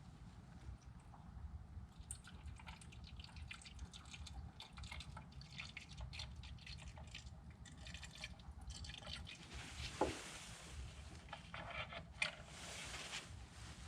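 Coolant being poured into a BMW's new coolant expansion tank: faint liquid trickling and dripping with scattered light clicks, and two sharp knocks about ten and twelve seconds in.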